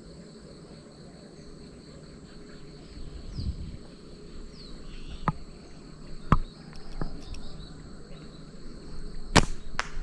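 Insects trilling steadily in the background, with a few sharp snaps spread through the middle and the loudest two near the end.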